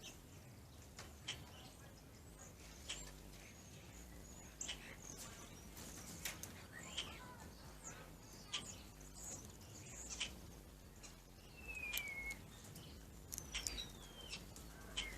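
Birds calling: a scattered string of short, sharp chips, with two clear downslurred whistles in the second half.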